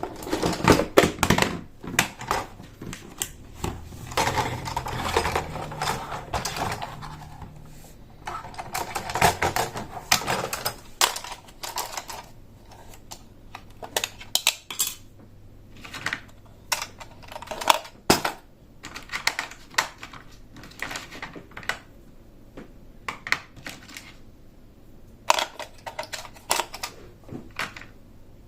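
Plastic toy train pieces being handled: irregular clicks, taps and clatters, busier in the first half.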